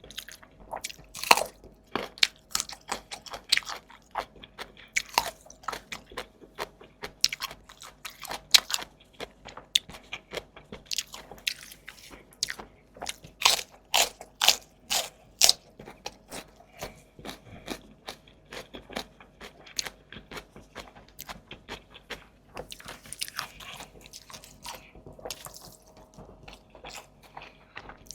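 Close-miked eating sounds: rapid biting and chewing with crisp crunches and wet mouth clicks, loudest about halfway through.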